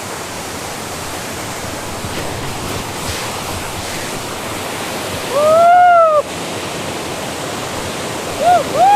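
Waterfall rushing steadily, a loud, even roar of falling water. Over it, about five seconds in, comes a loud call that rises and then falls in pitch, and two short calls like it follow near the end.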